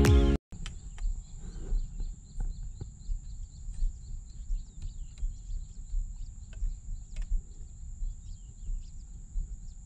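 Music cuts off just after the start, then outdoor marsh ambience: wind rumbling on the microphone, a steady high-pitched hiss, and faint bird chirps scattered through it.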